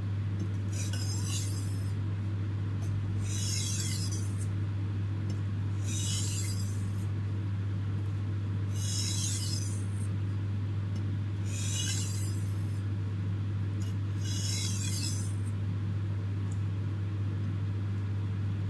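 Light edge-trailing stropping strokes of a kitchen knife on an oiled sharpening stone: six brief scraping hisses, one every two and a half to three seconds, the final passes that work off the burr and refine the edge. A steady low hum runs under them throughout.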